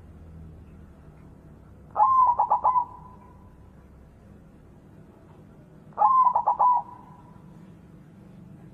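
White zebra dove (perkutut) cooing twice, about four seconds apart. Each phrase is a quick rising note followed by a short run of rapid, evenly spaced notes.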